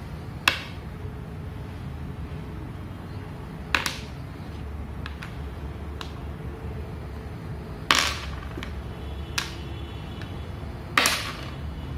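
Go stones being set down one at a time on a Go board: five sharp clacks a few seconds apart, with a few fainter taps between them.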